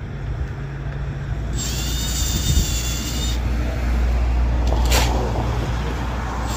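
Cordless drill whining for about two seconds while working on the sled's ski crossbar, the motor pitch wavering. Under it runs a low rumble of a car passing on the street, loudest past the middle, with a single click near the end.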